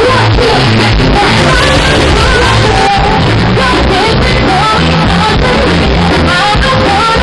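Live band playing loudly while a woman sings into a handheld microphone. The recording is poor and crowded.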